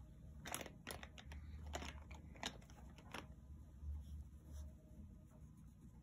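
Faint rustling and crinkling of a paper drawing and a plastic folder being handled, with a handful of sharp crackles in the first three seconds or so.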